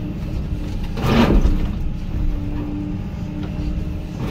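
Hyundai HX220AL excavator running: a steady low engine rumble with a faint hum that comes and goes, and a louder rush of noise about a second in.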